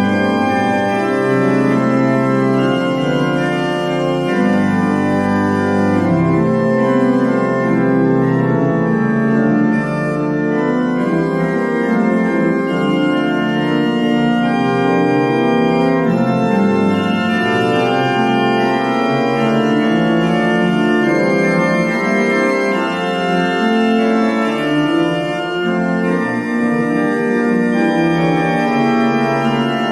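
Organ music: sustained chords that change every second or two, without a break.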